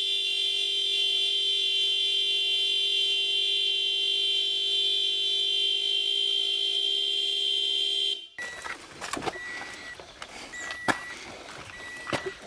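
A loud, steady horn-like tone of several pitches sounds for about eight seconds, then cuts off abruptly. After it, a car's warning chime beeps about once every second and a half, with clicks and knocks of someone getting into the car through the open driver's door.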